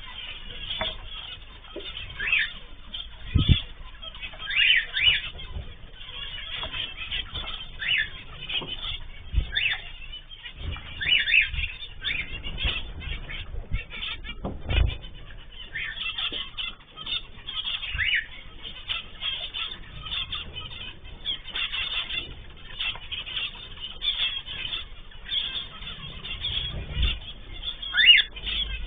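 Aviary of cockatiels, zebra finches and canaries chirping and calling in many short, overlapping bursts, with a few low thumps.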